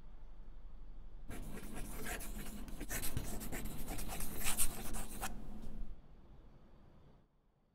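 Pen nib scratching across paper in quick writing strokes for about four seconds, starting about a second in, over a faint low hum.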